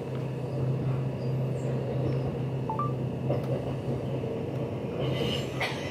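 Steady rumble of a passenger train running along the line, heard from inside the carriage, with a constant low hum under it. A few faint clicks come near the end.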